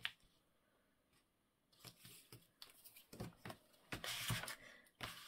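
Paper being handled at a craft table: near silence at first, then irregular scratchy rustles and rubs from about two seconds in.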